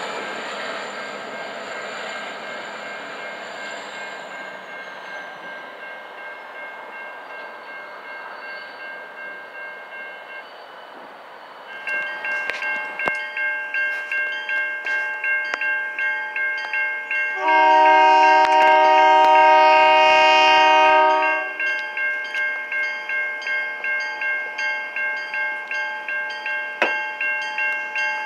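A freight train's rolling noise fades away over the first ten seconds or so. Then a grade-crossing bell starts ringing, about two strokes a second, and an approaching locomotive's horn sounds one long chord for about four seconds while the bell keeps ringing.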